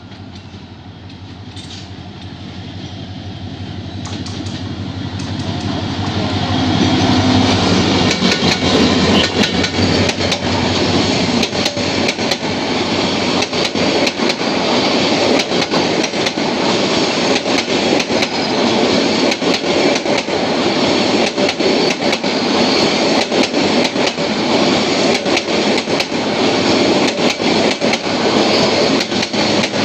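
Passenger train with a diesel-electric locomotive and intercity coaches approaching and passing close by. The running sound grows louder over the first several seconds, then holds steady with a rapid, continuous clacking of wheels over the rail joints as the coaches go by.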